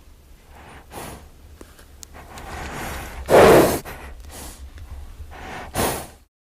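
A horse snorting and blowing out through its nostrils in several breaths. The loudest comes about three and a half seconds in and a last snort near the end, then the sound cuts off.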